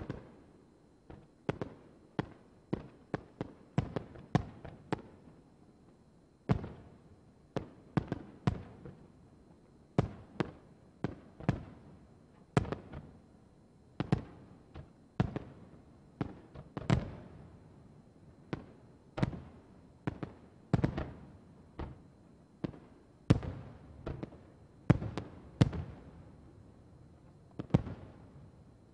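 Japanese aerial firework shells bursting in a display: a long irregular run of sharp bangs, about one or two a second, each trailing off in an echo, with a short lull about five seconds in.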